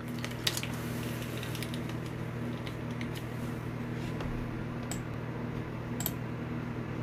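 Steady low hum of a running fan in the room, with a few light clicks scattered through it.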